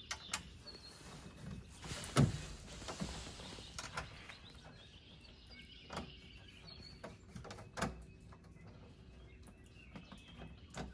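Handling noise as a 6x9 speaker is fitted into a pickup truck's front door: scattered light clicks and knocks, the loudest about two seconds in. Faint high chirps are heard now and then behind them.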